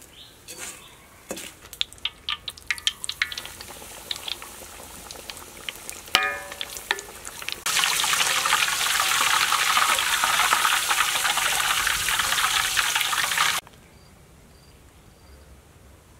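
Breaded mozzarella deep-frying in hot oil: a loud, steady sizzle lasting about six seconds that cuts off suddenly. Before it come scattered light crackles and a single sharp, ringing clink; after it, faint insect chirping.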